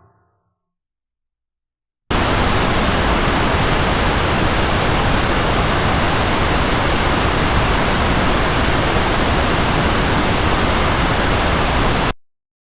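Pink noise test tone played back through a brand-new, not yet burned-in Drop + THX AAA 789 headphone amplifier. A steady, even hiss begins about two seconds in, runs for about ten seconds and cuts off suddenly.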